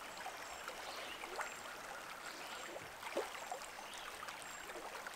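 Flowing stream: a steady hiss of running water with small gurgles now and then.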